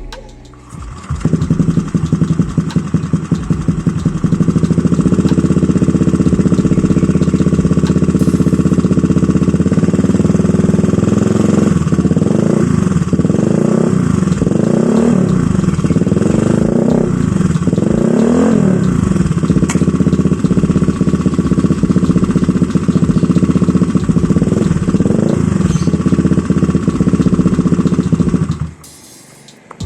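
A Honda Vario 125 scooter's single-cylinder four-stroke engine running through an ABF Racing oval D-Series 30 cm aftermarket silencer. It starts about a second in and idles steadily, then is blipped through a run of quick revs, with two more a little later, and cuts off near the end.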